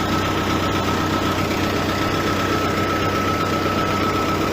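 New Holland LB115.B backhoe loader's diesel engine idling steadily at about 700 rpm, with a steady high-pitched whine over it.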